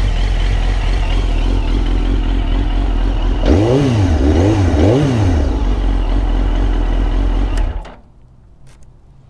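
2001 Suzuki GSX-R1000 K1's inline-four idling through a Yoshimura muffler, blipped three quick times about halfway through and then settling back to idle. The engine then cuts out suddenly, shut off, near the end.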